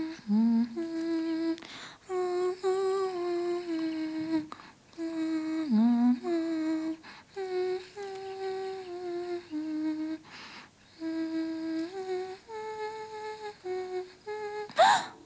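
A woman humming a wordless tune in long held notes. Near the end a short rising sound effect cuts in, the loudest moment.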